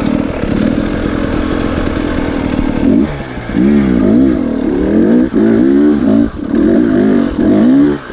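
Dirt bike engine, just started, running at a steady fast idle for about three seconds, then revved up and down repeatedly in a series of short blips.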